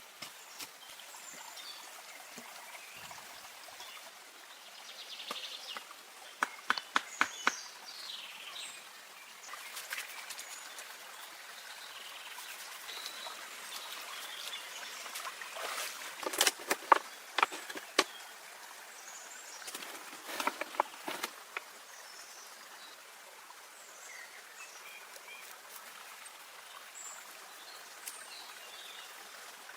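Flowing stream water with bird chirps and insects, broken three times by short clusters of sharp clicks or knocks, loudest about halfway through.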